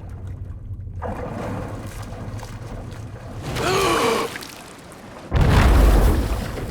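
Film sound effects of a big ocean wave: surf noise, a short wavering pitched sound about three and a half seconds in, then a sudden, heavy crash of breaking water a little after five seconds, the loudest part.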